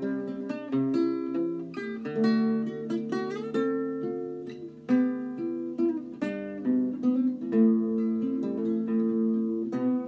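Solo acoustic guitar playing an improvised, traditional-sounding folk tune: a steady flow of plucked notes that ring and fade over lower bass notes.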